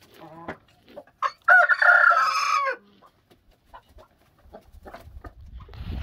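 Rooster crowing once, a short opening note followed by a held call of about a second and a half, among quieter clucking from the flock. A low rumble comes in near the end.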